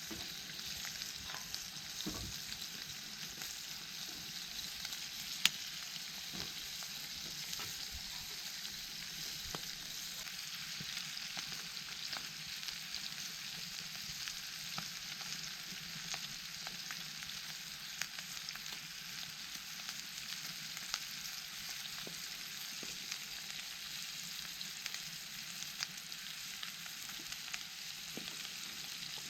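Food sizzling steadily in a pan over a campfire, with scattered pops and one sharper crack about five seconds in.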